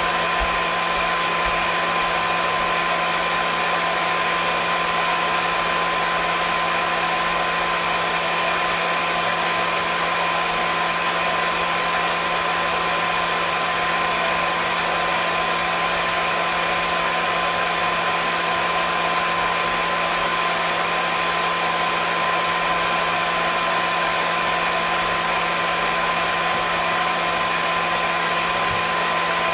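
Hair dryer running steadily: an even rushing of air with a constant motor whine.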